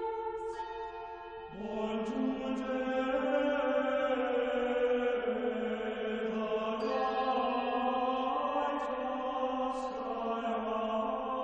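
Slow sung chant, voices holding long sustained notes, with a lower voice joining about a second and a half in.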